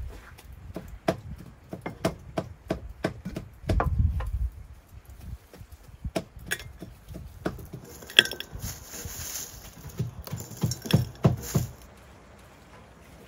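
Irregular knocks and taps of food being prepared at a wooden table, with a short clink about eight seconds in.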